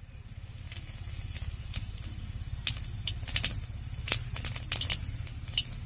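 Cumin seeds spluttering in hot oil: irregular sharp pops and crackles, more of them after the first second, over a steady low hum.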